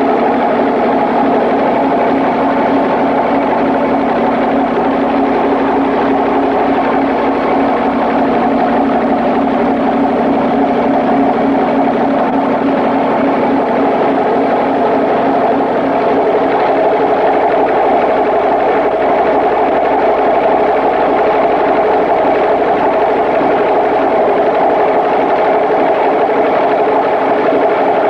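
An engine running steadily with a constant droning hum. About two-thirds of the way through, the tone shifts and it gets slightly louder.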